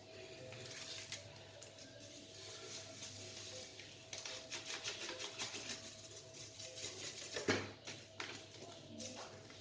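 Faint rustling, crinkling and light taps of small food packets being opened and emptied into a blender jug, over a faint steady hum.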